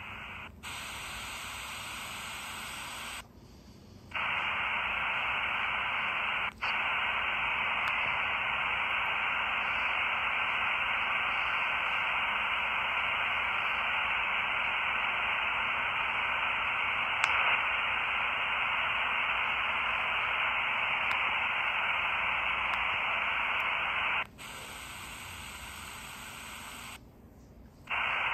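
4732 miniature shortwave receiver hissing static through its small speaker, with no station coming in: the poor reception the set is known for. The hiss drops to a quieter noise twice, briefly near the start and again for the last few seconds, with a couple of short clicks.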